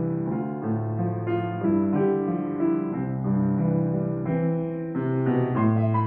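Grand piano played solo: a gentle piece with chords changing about once a second over held bass notes.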